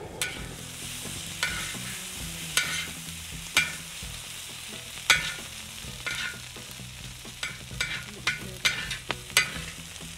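Metal spatula scraping and clanking across a steel discada (plow-disc wok) as diced hash-brown potatoes are pushed to its edge, over a steady sizzle of frying. The sharp scrapes come about once a second, then faster and closer together in the second half.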